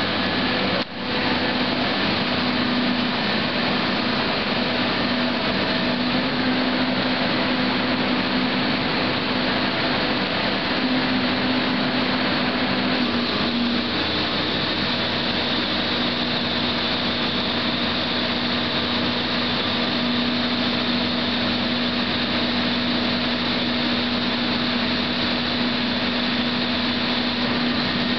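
MKT V-5Esc excavator-mounted hydraulic vibratory hammer running while clamped to a steel pipe pile, together with the excavator's engine and hydraulics: a steady, loud machine drone with a held whining tone that shifts slightly about halfway through.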